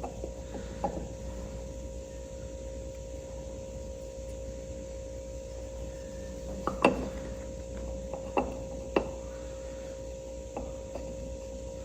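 A few sharp light clicks and knocks of parts being handled at the tractor's distributor while the new rotor and cap are fitted, over a steady background hum.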